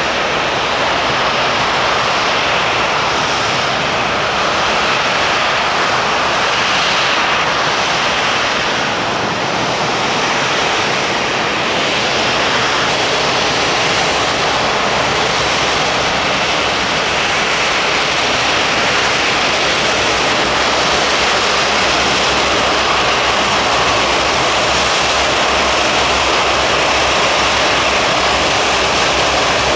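Airbus A380's four Rolls-Royce Trent 900 turbofan engines running at taxi power, a steady loud jet rush as the airliner taxis slowly.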